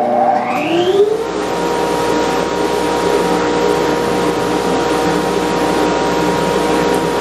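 Bandsaw starting up: the motor's whine rises in pitch over about the first second, then the saw runs at a steady speed.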